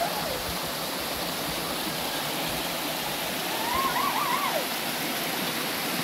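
Steady rush of running water. About four seconds in, a short wavering call rises and falls briefly over it.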